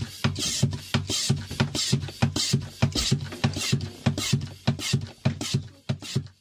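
Oil extractor vacuum pump being worked by hand, a steady run of strokes about three a second, drawing warm engine oil out of the sump through a thin tube down the dipstick hole.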